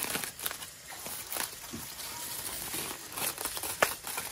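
Aluminium foil crinkling in irregular crackles as hands peel open a hot foil parcel of cooked ribs.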